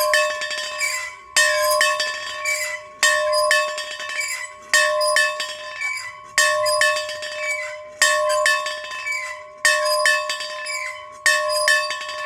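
A single bell tolled steadily, struck about every second and a half to two seconds, each stroke ringing on into the next. It is a memorial toll for a family member who has died.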